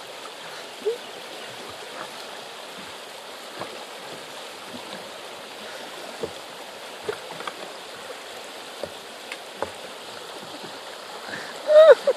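River current running steadily, with scattered small clicks and splashes; a short loud voice cry near the end.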